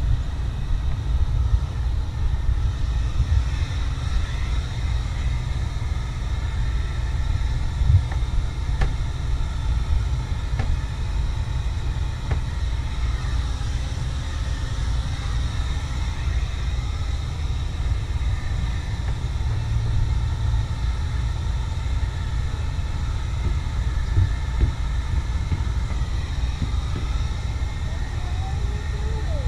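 Steady low rumble, like wind buffeting the microphone, with faint whining tones above it and a few sharp knocks, one about eight seconds in and another near twenty-four seconds.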